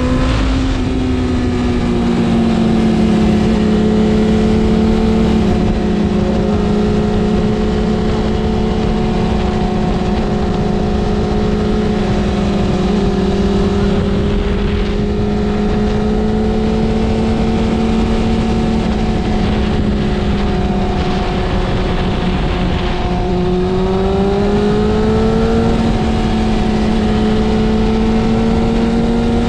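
BMW S1000RR's inline-four engine running at steady riding revs over a steady rushing noise; the revs drop a little over twenty seconds in and climb back a few seconds later.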